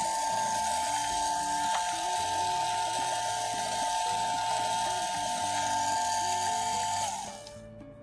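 Small battery motor in a toy iron whirring with a steady high whine and hiss as it stirs the foam beads in the clear tank; it winds down and stops about seven seconds in.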